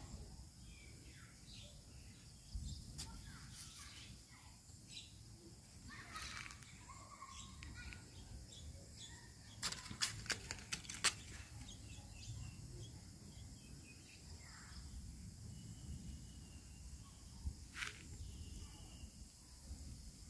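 Faint outdoor ambience: scattered bird chirps over a steady high hiss and low rumble, with a quick run of sharp clicks about halfway through and one more near the end.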